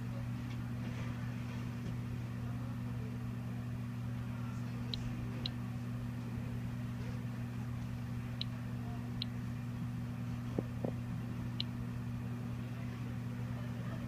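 Vernier Digital Radiation Monitor (a Geiger counter) beeping five times at irregular intervals, one short high beep per detected count, at a background rate of about 21 to 23 counts per minute. A steady low hum runs underneath.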